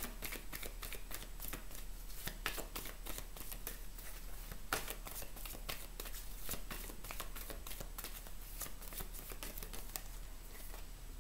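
A deck of oracle cards being shuffled by hand: a steady run of quick, crisp card clicks and slides.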